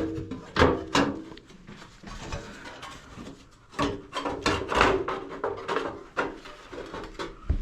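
Irregular clunks and knocks as a fan coil unit's blower housing is handled and fitted back on over the blower wheel.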